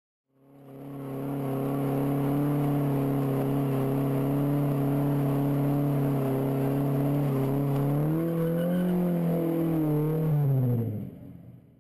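Car engine held at steady high revs during a tyre-smoking burnout, with the wheels spinning. Near the end the revs lift slightly, then drop away and the sound fades out.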